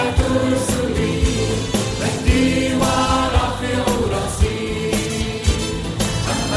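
Arabic Christian hymn music: sung, choir-like voices over backing music with a drum beat.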